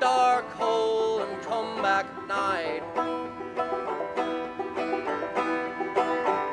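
Bluegrass-style background music led by a picked banjo, with quick plucked notes and no singing.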